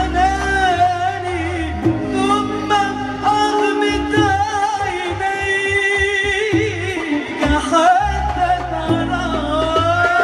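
A woman singing into a microphone, holding long, ornamented notes with a wavering vibrato, over instrumental accompaniment with a steady bass line.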